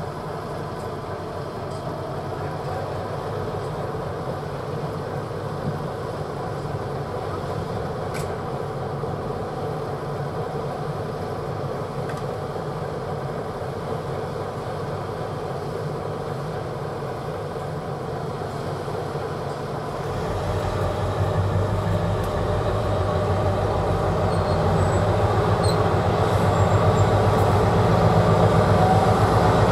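Class 60 diesel locomotive's eight-cylinder Mirrlees engine running steadily, then from about 20 seconds in its low note strengthens and grows louder as the engine loads up to move the heavy tank train.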